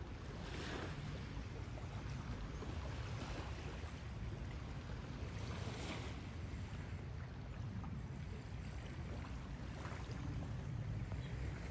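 Water washing and lapping in soft swells every few seconds over a steady low rumble.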